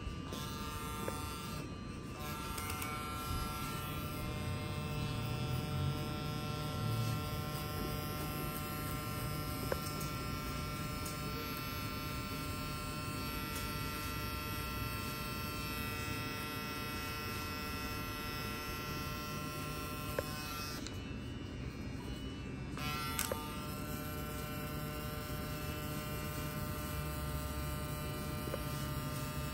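Electric hair clipper buzzing steadily as it cuts hair, stopping briefly twice, once near the start and once about two-thirds of the way through.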